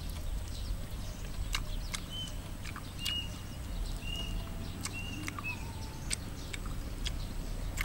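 Close-up mouth sounds of someone eating a piece of cooked chicken: sharp chewing clicks and smacks at irregular intervals, about one a second. Faint short bird chirps come through a few times in the middle, over a low wind rumble.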